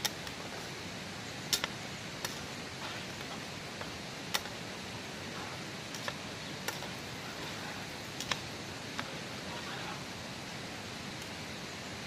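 Steady rush of nearby stream water, with about ten scattered sharp clinks of a ladle stirring in a metal cooking pot.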